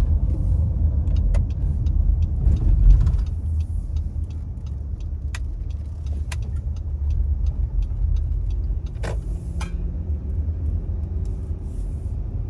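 Cabin noise of a 2017 Honda Pilot cruising at highway speed: a steady low rumble of road and engine, with scattered light ticks.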